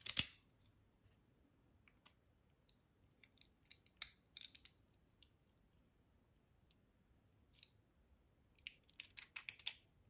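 Small metallic clicks and scrapes as a brass Medeco lock cylinder is handled: the key is worked in the plug and a follower rod pushes the plug out of its housing. A sharp click at the very start, scattered light clicks after it, and a quick run of small clicks near the end as the plug slides out.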